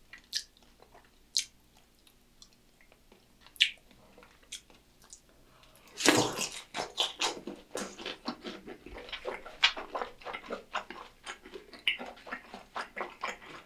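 Close-miked mouth sounds of a piece of Korean sweet-and-sour pork (tangsuyuk), thin-battered and sauced, being bitten about six seconds in and then chewed, a dense run of small wet clicks and smacks. Before the bite there are only a few isolated light clicks.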